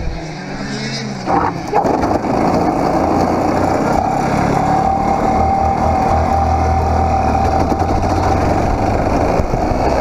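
100cc Parilla reed-valve two-stroke kart engine, heard onboard. It is quieter for the first second and a half, then gets sharply louder about two seconds in and holds at high, steady revs as the kart drives on the track.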